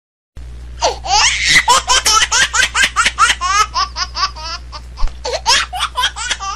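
Hearty laughter in fast repeated bursts, about five or six a second, starting abruptly just after a moment of dead silence, over a steady low hum.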